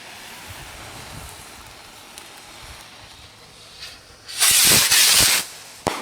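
Consumer fireworks going off: a loud rushing whoosh lasting about a second, starting about four and a half seconds in, then a sharp bang near the end.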